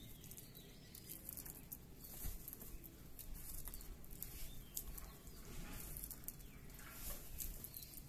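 Faint, irregular tapping and clicking of pigeons pecking food off a concrete floor.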